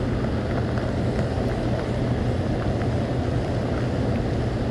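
Steady low hum and rumble with faint scattered ticks.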